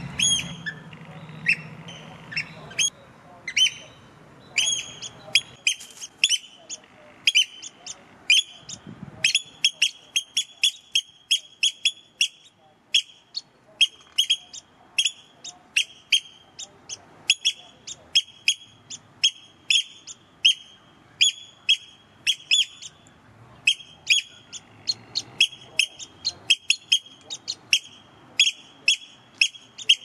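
A pair of Eurasian oystercatchers calling loudly and continuously: short, sharp, piping calls repeated two to three times a second, growing denser after the first several seconds.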